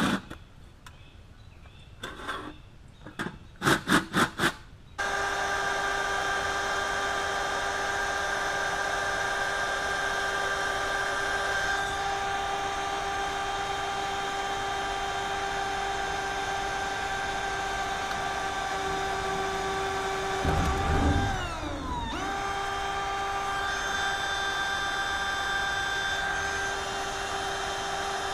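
Hand-held power tool: a few short trigger bursts, then its motor runs at a steady high whine for over twenty seconds. About three-quarters of the way through it bogs down under load with a few low knocks and then spins back up to speed.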